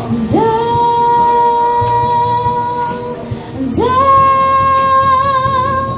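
A female voice sings two long held notes, each sliding up into pitch, over a soft music backing. The second note wavers with a slight vibrato.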